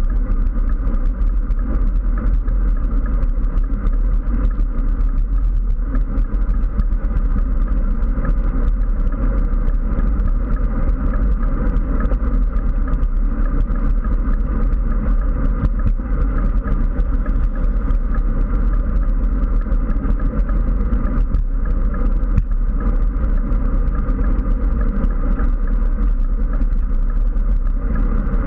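Steady, loud wind rumble buffeting a handlebar-mounted GoPro on a road bike riding at speed.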